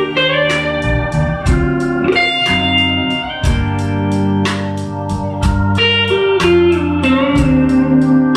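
Instrumental music: guitar notes that slide in pitch over sustained backing chords.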